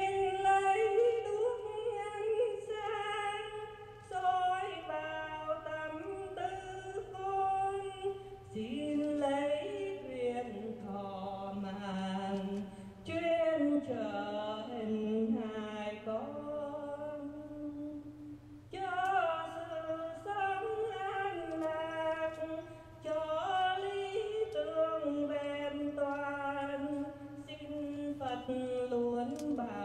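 A woman singing solo into a handheld microphone with no accompaniment, in long held notes that glide from one pitch to the next, pausing briefly for breath every few seconds.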